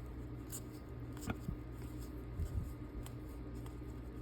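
Faint handling of trading cards: a few soft ticks and rustles as cards are slid and flipped from a pack, over a low steady room hum.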